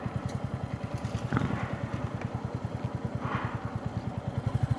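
Motorcycle engine running with an even, rapid low putter of firing pulses. Two brief hissy swells come in, about a second and a half and three seconds in.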